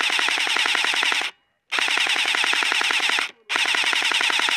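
Airsoft electric rifle firing on full auto in three long bursts of rapid clicks, with short pauses about a second in and about three seconds in.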